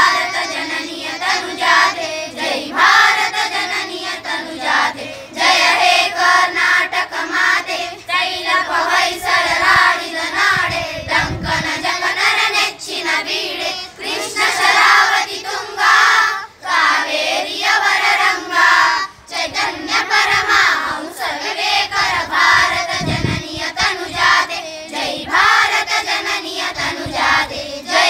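A choir of schoolchildren, girls and boys, singing a song together in phrases with short breaths between them.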